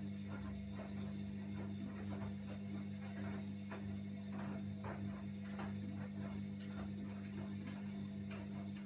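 Washing machine running: a steady motor hum with irregular light clicks and ticks over it.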